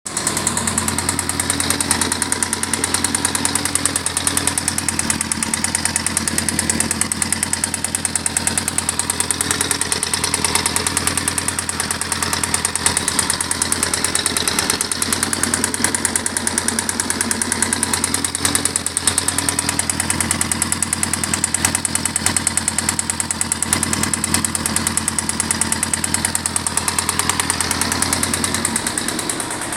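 Engine idling with a steady, rapid knock, which the owner takes for a bottom-end knock, likely a worn connecting rod. The engine note eases slightly just before the end.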